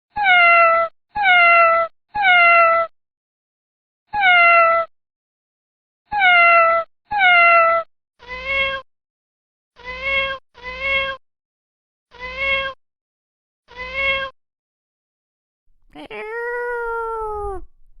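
Domestic cat meows: a short, falling meow repeated six times with dead silence between, then a lower meow repeated five times, then one long drawn-out meow that rises and falls near the end.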